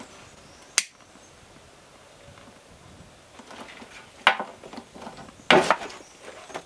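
Small handling sounds from plumbing work under a sink: a sharp click about a second in, then two knocks, the second and louder one about five and a half seconds in.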